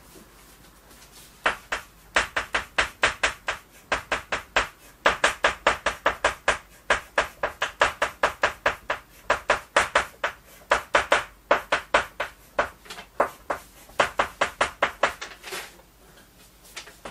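Chalk writing on a blackboard: quick sharp taps and short strokes, several a second, in runs broken by brief pauses.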